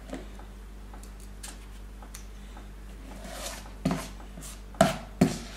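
Ice-cream scoop scraping and knocking against a mixing bowl while scooping cupcake batter. Light clicks at first, then a louder knock just before four seconds in and two more near the end.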